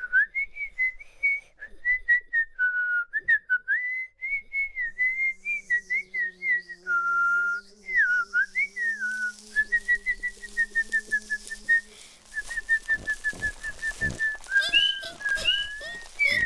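Whistling, a single high tone that slides up and down in pitch and breaks into quick even trills, with a low steady hum beneath it through the middle. Near the end a run of knocks and sharper, higher chirps joins in.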